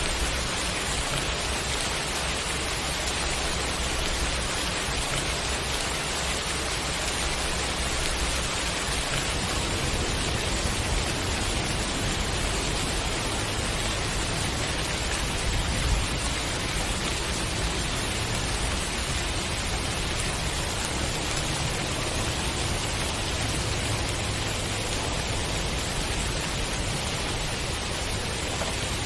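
Steady rain falling: an even hiss that does not let up, with one brief louder tap about sixteen seconds in.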